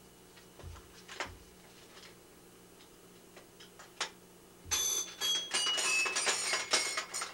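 A musical toy plays a quick run of bright, bell-like notes, mostly stepping down in pitch, starting about two-thirds of the way in. Before it come a few light knocks of the toy being handled.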